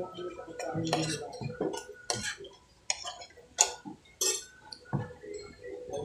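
Metal spoon and fork clinking and scraping against a ceramic plate while scooping rice, a series of short sharp clinks, the loudest about three and a half seconds in.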